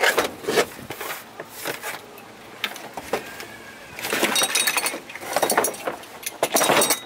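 Cardboard box of a 2-ton Maasdam Pow'R-Pull come-along being handled and opened, with knocks and rustling, then the steel come-along and its hooks and cable clinking and rattling as it is lifted out of the box, in two clattering spells from about four seconds in.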